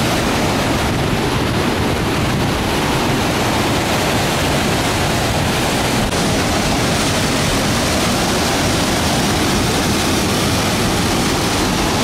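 Whitewater rapids of the Middle Fork Stanislaus River rushing through a narrow rock chute, a loud, steady, unbroken water noise.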